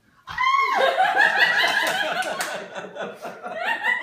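A woman's sudden, high-pitched scream of surprise about a third of a second in, running straight on into excited, laughing cries.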